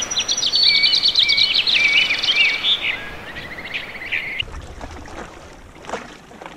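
A small songbird singing a rapid run of varied notes and trills, which stops abruptly about four seconds in.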